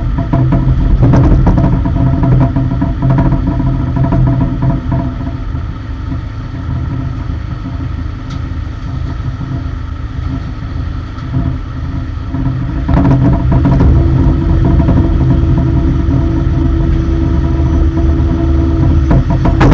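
Airport cargo loader's engine running steadily on the ramp, with loud metallic clanks in the first few seconds, again about two-thirds through and near the end. The engine grows louder about two-thirds through, when a steady hum sets in.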